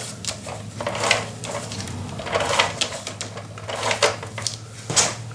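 Sheets of craft paper handled and pressed down onto a box, with rustling and several short taps and clicks, the sharpest near the end.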